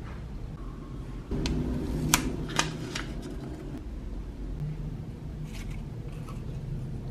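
Paper and plastic packaging being handled: a sticker pack's translucent sleeve and paper sticker sheets rustling and crinkling, with a few sharp crinkles about a second and a half to three seconds in and fainter ones later, over a steady low room hum.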